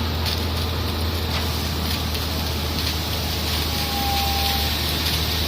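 Heavy construction machinery's engine running steadily with a low hum, with a brief high-pitched tone lasting about a second near four seconds in.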